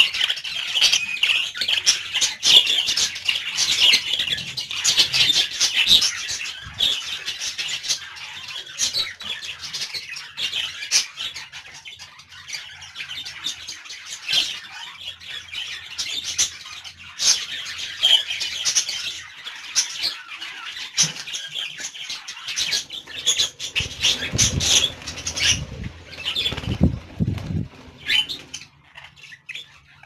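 A colony of budgerigars chattering and chirping continuously, many birds at once. There are some low thumps a few seconds before the end.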